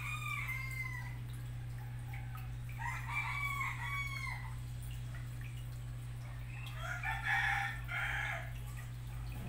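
Steady low hum of aquarium equipment, with three drawn-out, pitched animal calls over it, each about a second long, at the start, about three seconds in and about seven seconds in; the last call is the loudest.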